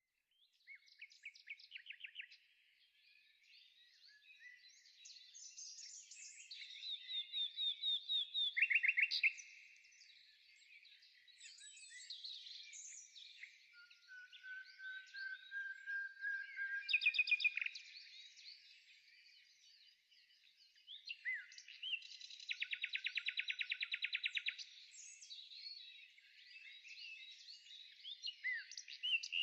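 Songbirds singing: a busy mix of chirps and rapid trills. Louder trills come about a third of the way in, at the middle, and a long fast one about three-quarters through.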